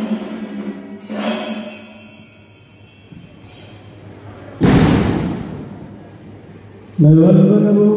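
Music fades out, a metallic strike rings briefly about a second in, and a loud thud halfway through dies away over about a second. Near the end a group of voices starts a steady chant.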